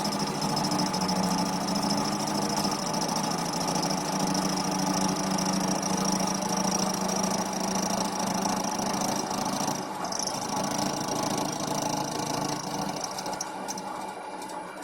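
TV-16 benchtop lathe running at about 800 rpm, milling a steel block with a cutter held in its chuck. A steady high whine from the cut stops about ten seconds in, and the machine goes quieter near the end.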